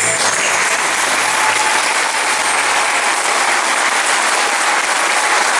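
Audience applauding, a dense steady clapping that follows the choir's final chord, with the last low note of the music dying away under it in the first couple of seconds.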